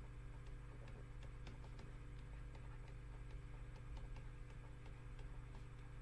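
Faint, irregular ticks and taps from a pointing device as words are handwritten on a computer, over a steady low hum.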